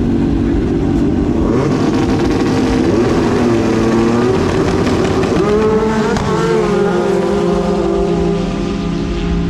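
Snowmobile engine at a grass-drag starting line, holding a steady note and then launching at full throttle. The pitch swings up and down about halfway through, then settles on a lower steady note.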